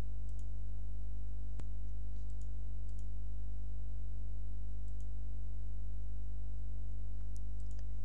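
Steady low electrical hum with a few faint clicks scattered through it, the sharpest about a second and a half in and a couple more near the end.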